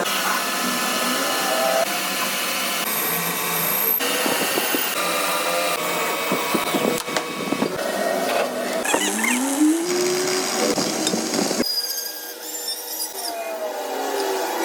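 Power tools running on metal, with the sound changing abruptly every few seconds and a motor whining up to speed a little before ten seconds in.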